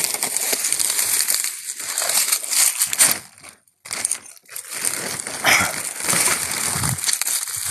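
Footsteps crunching and shuffling through dry fallen leaves, mixed with the crinkle of a plastic carrier bag. The rustling stops for about half a second a little past three seconds in, then carries on.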